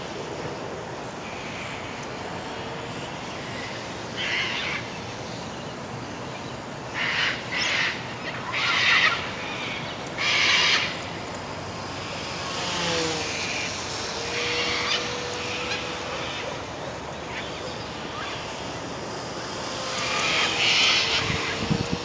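Wind buffeting the microphone in gusts. Through it, from about halfway in, the faint steady whine of a micro electric RC plane's motor (E-flite UMX Beast) dips in pitch and then holds as the plane passes overhead.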